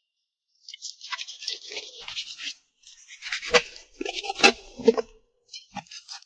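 A dog eating close to the microphone: a run of crackly chewing and lip-smacking, with three sharp, louder crunches in the second half and a few more chews near the end.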